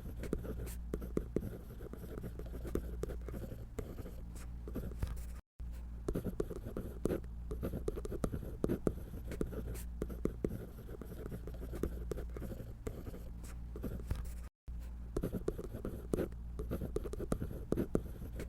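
A drawing tool scratching on paper in quick, irregular strokes as a figure is drawn. The sound drops out completely twice for a split second.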